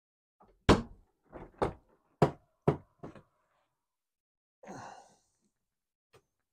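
Boot lid of a Mercedes SL R230 being unlatched and lifted open: a run of about six sharp clicks and knocks over two seconds or so, then a short rushing noise about five seconds in.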